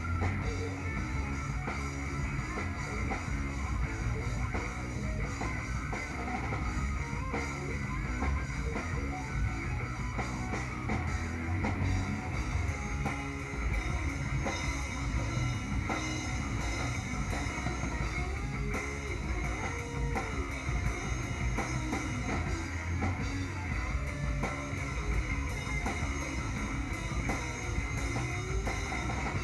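Live heavy stoner rock band playing, with the drum kit up close and loud: steady kick and cymbal hits under distorted electric guitar.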